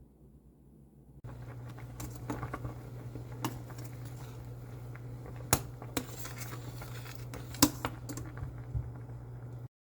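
Scattered light clicks, taps and rustles of small objects being handled close by, over a steady low hum that starts about a second in. The sound stops abruptly just before the end.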